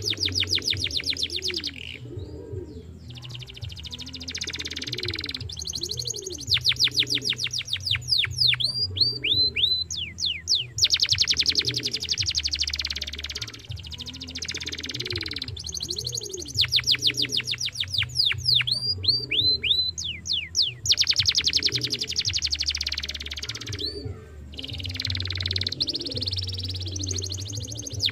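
Domestic canary singing: long phrases of very fast trills and rolls, broken by runs of quick falling whistled notes, with short pauses between phrases.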